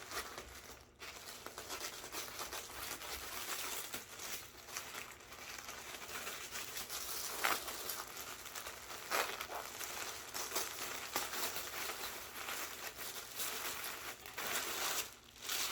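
Packaging being handled and unwrapped: continuous crinkling and rustling with irregular sharp crackles.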